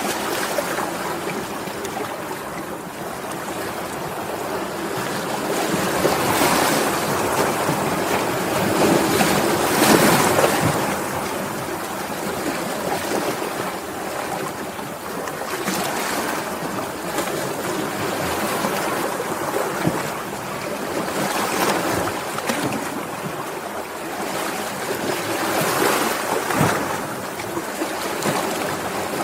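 Sea waves washing in and falling back, a steady rush that swells and ebbs every few seconds, loudest about ten seconds in.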